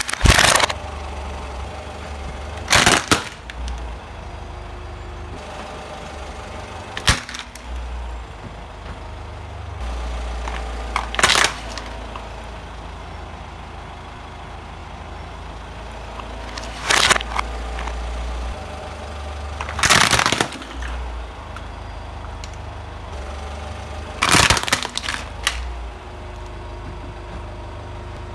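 Plastic toy vehicles cracking and snapping under a car tyre: about seven sharp cracks a few seconds apart, each over in under a second, over a steady low rumble.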